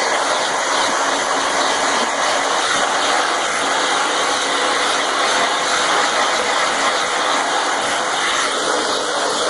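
Handheld electric hair dryer running steadily, an even rushing noise of blown air.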